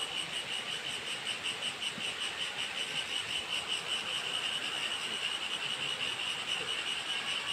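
A steady, high-pitched insect chorus, trilling in fast regular pulses, over the even rush of the waterfall.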